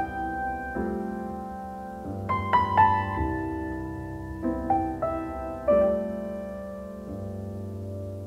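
Background piano music: slow, held chords, with new notes struck about every second and left to ring.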